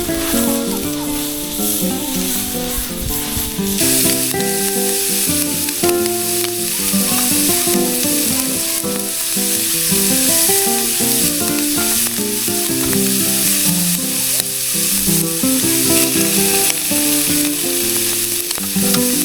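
Food sizzling steadily in a frying pan, a constant hiss, under background music with a clear melody.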